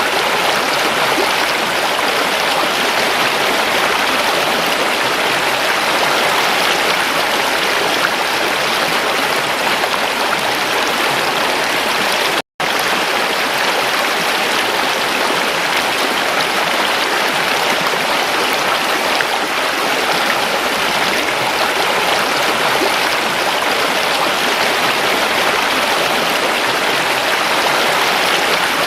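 Stream water flowing and splashing over its bed, a steady rushing sound. The sound cuts out completely for a split second about halfway through.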